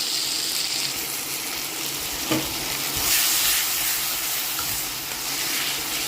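Soaked, drained urad dal, chana dal and coriander seeds sizzling as they roast in hot oil in a pan, a steady hiss that swells louder about three seconds in. A single sharp knock comes a little after two seconds.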